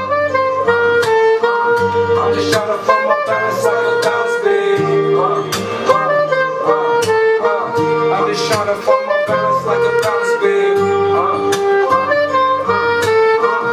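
Soprano saxophone playing a melody of long held notes over a hip-hop beat with drum hits and a stepping bass line.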